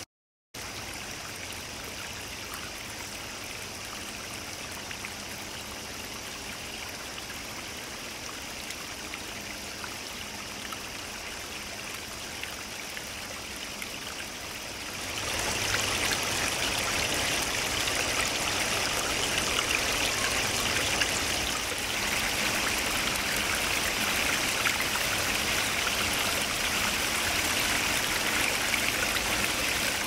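Water from a man-made rock waterfall running and trickling down stacked stones into a small pool, a steady rushing splash. About halfway through it becomes clearly louder and fuller.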